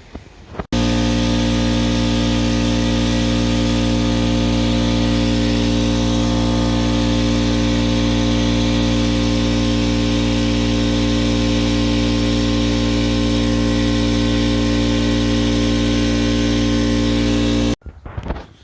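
Air compressor running steadily with a constant-pitched motor hum. It cuts in suddenly near the start and cuts off abruptly near the end.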